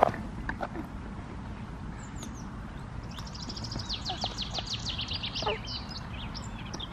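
A songbird singing a fast, high trill of rapidly repeated notes that starts about three seconds in and lasts about two seconds, with a few single high notes after it, over a steady low background rumble. A knock at the very start.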